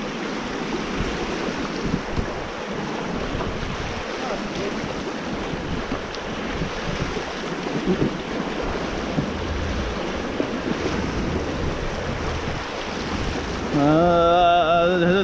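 Rushing whitewater of a river rapid around an open canoe running down it. Near the end a person lets out a long, wavering call.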